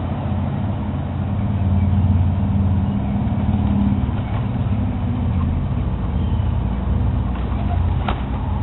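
A vehicle engine idling, a steady low hum, with one short sharp click near the end.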